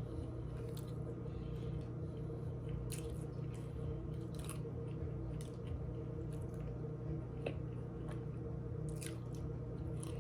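A person chewing and biting into a sub sandwich, with scattered short wet smacks and crunches, over a steady low hum.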